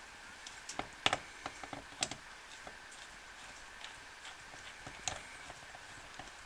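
Phillips screwdriver backing a screw out of the oil-drain cover plate under a 2020 Subaru Forester: irregular small clicks and ticks, the loudest about a second in and again near two and five seconds.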